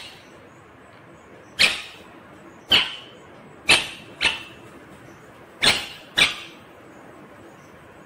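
Indian ringneck parakeet giving six short, sharp calls, the later ones in quick pairs about half a second apart.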